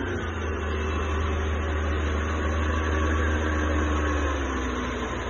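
Speedboat's outboard motor running hard at speed, a steady low engine note whose pitch sags slightly about four seconds in, with water rushing and churning in the wake.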